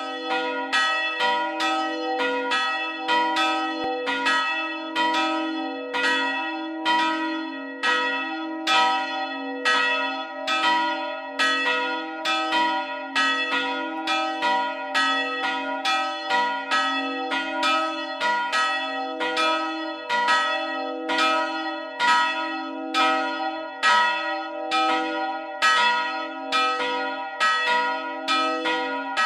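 Church bells ringing in a steady, unbroken run of strikes, about two to three a second, each tone ringing on into the next.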